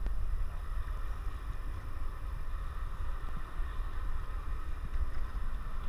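Steady low rumble with a light hiss over it: the background noise aboard a boat on open water.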